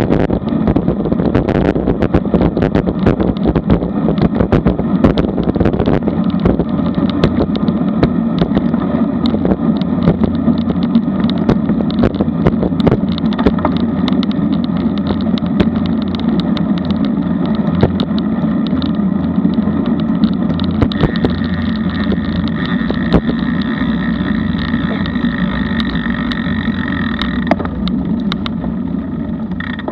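Steady rush of wind over a bike-mounted action camera's microphone, mixed with the tyre and road noise of a road bike riding at speed, with frequent small clicks and rattles. A faint higher whine joins about two-thirds of the way through and stops shortly before the end, as the bike slows to a coast.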